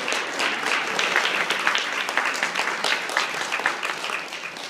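Audience applauding, many hands clapping densely, easing off slightly near the end.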